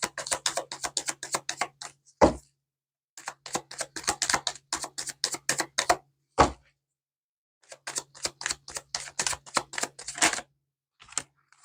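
Typewriter keys typing in three quick runs of rapid clacks, each run ending in a single heavier strike, with a low hum under the typing.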